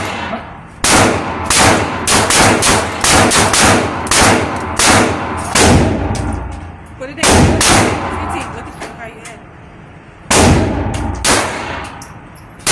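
Semi-automatic pistol shots echoing in an indoor shooting range: a quick string of about a dozen in the first six seconds, then a few more spaced a second or two apart.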